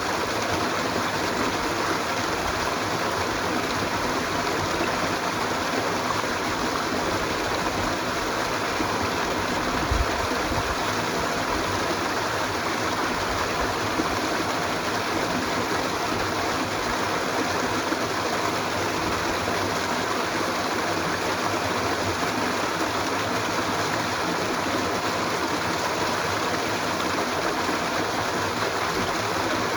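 Steady, even rush of running stream water, with a brief low thump about ten seconds in.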